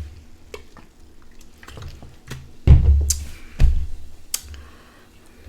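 Soda gulped straight from a 2-liter Sprite bottle: a string of swallows with liquid glugging in the bottle, loudest around three seconds in.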